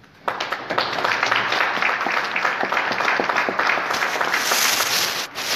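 Audience applauding, starting suddenly and stopping shortly before the end.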